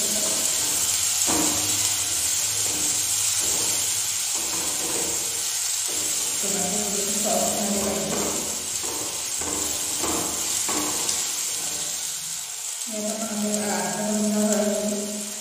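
Background music with long held melodic notes, over a steady sizzle of chopped onion, tomato and green chilli frying in oil in a pan.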